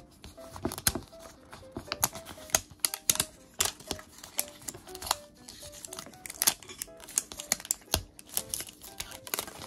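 Irregular sharp clicks and crinkles of plastic as a Miniverse toy capsule is handled and its plastic wrapper is peeled off, over soft background music.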